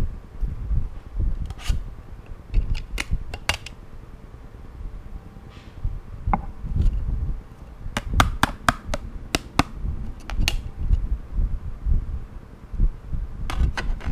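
Handling noise: a scatter of sharp clicks and taps, with a quick run of about a dozen in the middle, over a low rumble of the microphone being handled.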